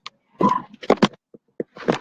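A rapid series of short, rough, animal-like vocal sounds.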